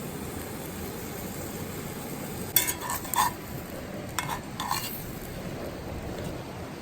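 A few light metal clinks of a cooking utensil against a pot, in two short clusters, over the steady rush of the river.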